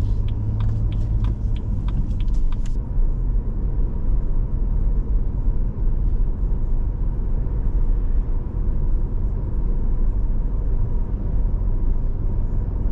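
Car cabin noise while driving: a steady low rumble of engine and tyres. A run of light ticks comes over the first few seconds and then stops.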